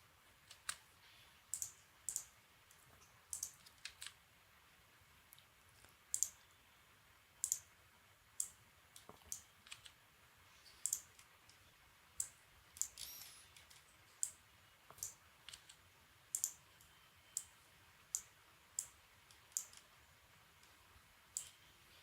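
Sharp single clicks of a computer mouse, irregular, roughly one every second, over a quiet room background.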